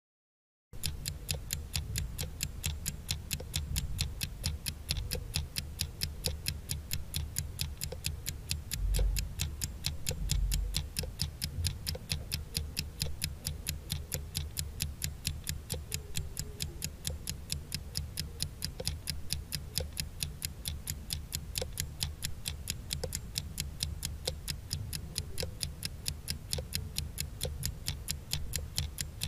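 Countdown-timer clock-ticking sound effect: quick, even ticks that begin just under a second in, with a low hum underneath.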